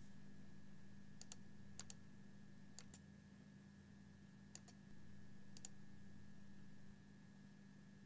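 Faint computer mouse clicks, five times, each a quick double tick of the button pressed and released, over a steady low electrical hum.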